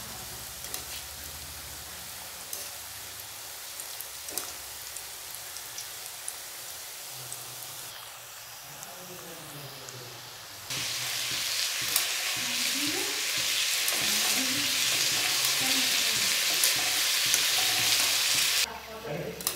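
Wheat-flour biscuit dough deep-frying in hot oil: a steady sizzle with small crackles. About ten seconds in it turns abruptly louder as the pieces are stirred in the oil, then drops back shortly before the end.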